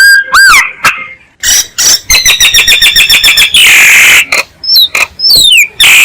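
Myna calling in a varied, loud sequence. Short whistled notes are followed, after a brief pause, by harsh grating squawks, a fast run of about eight repeated notes a second, and a few quick falling whistles near the end.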